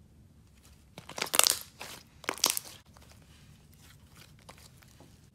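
Thick light purple slime being stretched and folded by hand, giving two loud crackling bursts of popping air pockets about a second and about two and a half seconds in, then fainter scattered crackles.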